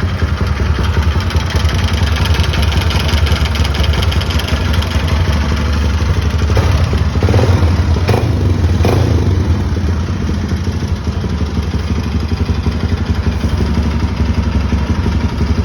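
A 150 Sport motorcycle engine running at idle, making the strange engine noise the owner is trying to track down. The revs rise and fall briefly a couple of times about halfway through.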